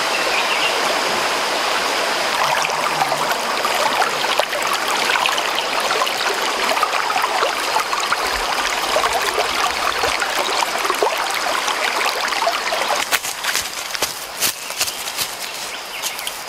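Shallow rocky stream running steadily over stones, a continuous babble of water. Near the end the water sound eases off and several sharp clicks come in.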